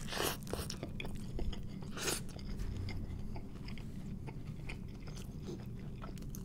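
Close-miked chewing of a mouthful of bacon cheeseburger, with small wet clicks and crunches and one louder crunch about two seconds in.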